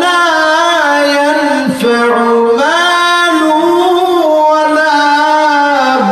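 A man chanting in a sung, melodic style into a microphone: a single voice in long held notes with slow slides in pitch. There is a short break a little under two seconds in, then a new phrase begins.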